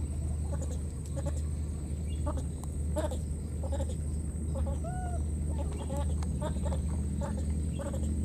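Animal calls: scattered short chirping calls and one rising-then-falling call about five seconds in, over a steady low rumble and a thin steady high tone.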